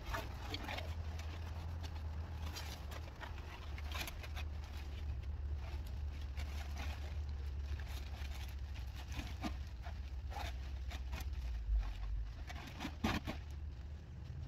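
Black plastic trash bags rustling and crinkling, with irregular knocks and scrapes of old roofing scraps being handled and pushed into them, over a steady low rumble.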